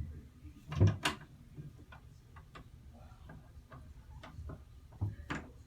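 Kittens playing in an empty bathtub: scattered small clicks and taps of paws and claws on the tub, with louder thumps about a second in and near the end.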